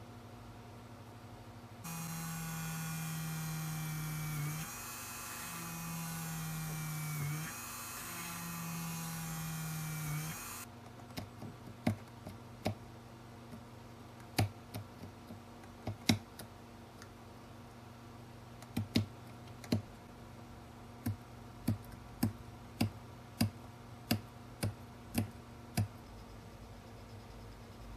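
A small hand-held electric rotary tool drills into a white plastic part, its motor whine sagging briefly twice as the bit bites and then recovering, before it stops about ten seconds in. After that come about twenty sharp, irregular clicks as the plastic part is worked by hand.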